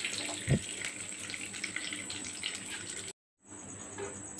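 Leftover frying oil sizzling and bubbling in a non-stick kadai, a steady hiss, with one low thump about half a second in. The sound drops out for a moment about three seconds in, then resumes quieter.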